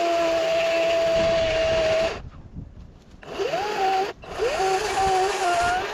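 Ego 18-inch cordless electric chainsaw cutting into a tree stump, its motor giving a steady whine over the chain noise. The saw stops about two seconds in. It spins back up with a rising whine, stops for a moment, then spins up again and cuts on.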